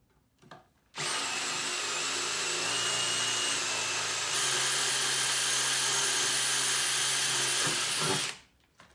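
Cordless drill running with a 7/32 bit, boring a pilot hole through a metal post cap for a tech screw. It starts about a second in and runs steadily for about seven seconds, its whine stepping a little higher and louder midway, then stops.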